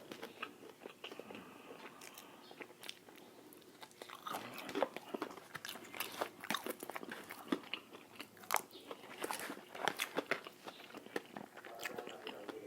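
Close-miked biting and chewing of crispy fried chicken (Jollibee Chickenjoy), the crisp skin crunching in many short sharp cracks. The crunches are sparse for the first few seconds and come thick and fast from about four seconds in.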